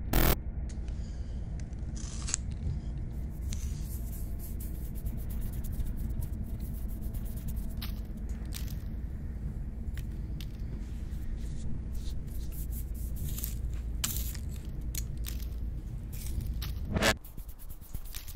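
A steady low rumble under scattered scraping and scratchy clicks. There is a sharp hit just at the start and another about two seconds in. A louder hit comes near the end, after which the rumble cuts out.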